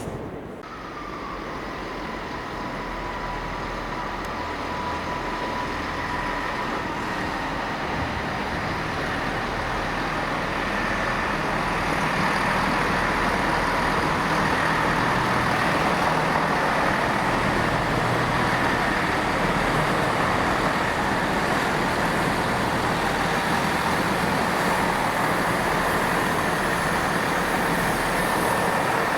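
A train's engine running at a station platform, a steady drone with a held whine, growing louder over the first dozen seconds and then holding steady.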